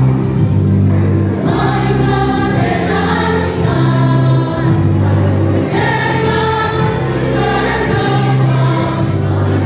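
Elementary-school children's choir singing in unison or parts, over sustained low accompaniment notes that change about once a second.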